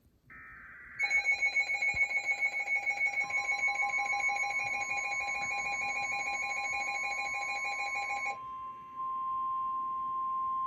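NOAA Weather Radio alert: a brief burst of SAME digital header tones, then a weather-radio receiver's rapidly pulsing alarm. From about three seconds in, the steady 1050 Hz warning alarm tone joins it. The pulsing alarm stops about eight seconds in and the steady tone continues alone, signalling a warning, here a flood warning.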